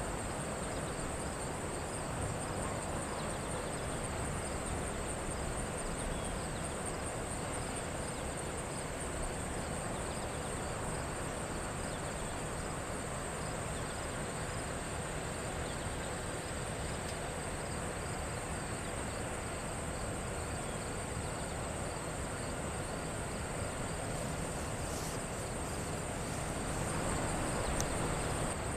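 Summer insects: a steady high-pitched drone with rapid chirping just below it, over a low steady rumble.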